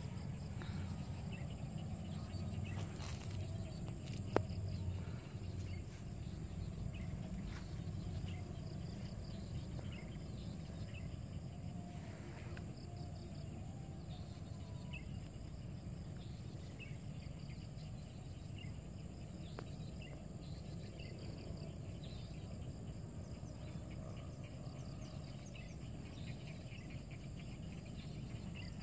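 Quiet outdoor ambience: a steady high insect drone with scattered faint chirps over a low, steady rumble, and a single sharp click about four seconds in.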